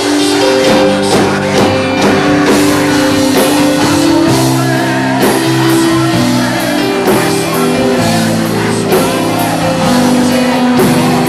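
Loud worship music with held chords and drum hits.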